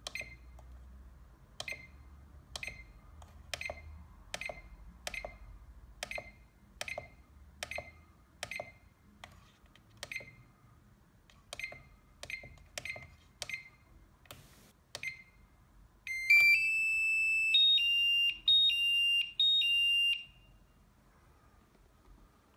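SkyRC D100 balance charger's beeper giving a short high beep with a click at each button press, about one every second, then about two-thirds of the way through a louder, longer string of beeps at two alternating pitches lasting about four seconds.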